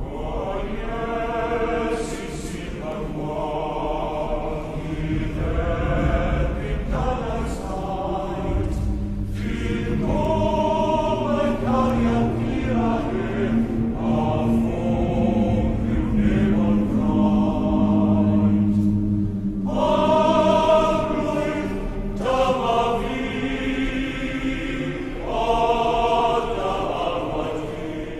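Soundtrack music of choir-like voices singing in slow, drawn-out phrases, with a low note held through the middle.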